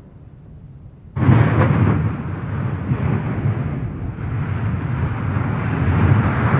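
Stromboli volcano erupting: a sudden explosive blast about a second in, followed by a sustained, dense rush of noise as the eruption goes on.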